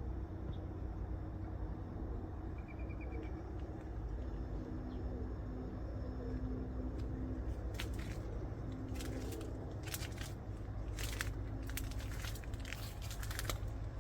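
Outdoor garden ambience: a steady low rumble with a brief bird trill about three seconds in. From about halfway, a run of sharp clicks and crackles comes close to the microphone.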